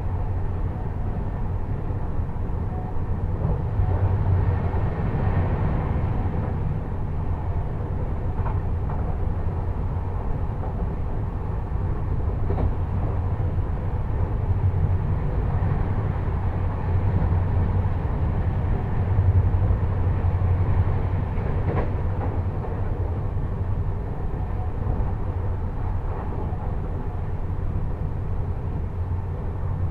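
Duronto Express passenger train running at high speed: a steady rumble of the wheels on the rails that swells a little now and then, with a few sharp clicks. Heard from on board the train.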